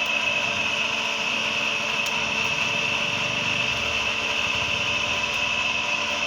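A small motor running steadily, with a constant high whine over a low hum.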